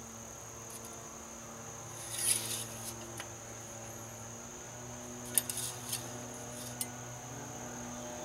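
Steady low hum together with a constant high-pitched whine. A few light clicks and rattles come about two seconds in and again between about five and seven seconds.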